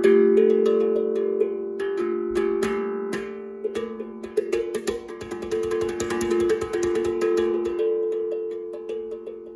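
Steel tongue drum played with the fingers: overlapping notes that ring on. About four seconds in comes a fast flurry of light taps across the tongues, and it eases back to slower, sparser notes near the end.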